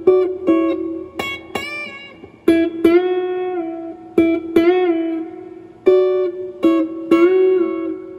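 Electric guitar with humbucking pickups played through a Fender Princeton Chorus solid-state 2x10 amplifier: a string of plucked notes, several bent up and back down in pitch, a double-bend lick imitating a slide guitar.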